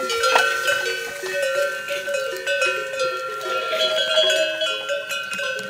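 Several goat bells clanking and ringing at different pitches, overlapping irregularly as the goats move about.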